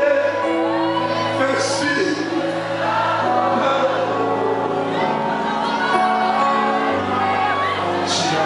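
Live gospel worship music: a man singing over sustained accompaniment chords.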